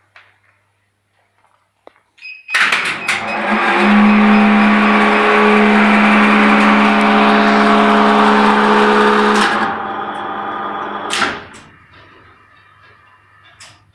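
A machine starts up suddenly and runs with a loud, steady hum for about seven seconds. It drops away near 9.5 s, a sharp knock follows near 11 s, then it fades.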